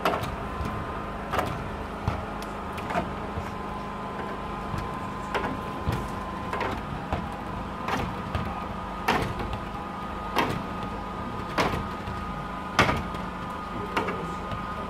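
A squeegee pushing the water out from under window film on a glass pane, in short sharp strokes about once a second, over a steady machine hum.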